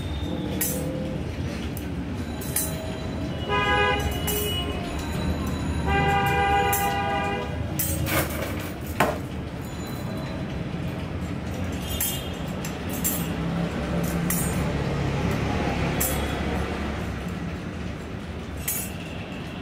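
Steel spokes clinking in short, scattered clicks as they are threaded one by one into the flange holes of an electric bicycle hub motor, over a steady low rumble. A horn sounds twice, briefly about four seconds in and longer at around six to seven seconds.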